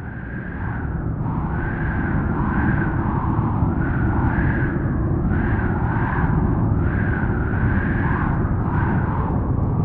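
Strong, cold howling wind: a deep rumble under an eerie, wavering howl that rises and falls in pitch every second or so, fading in at the start and then holding steady.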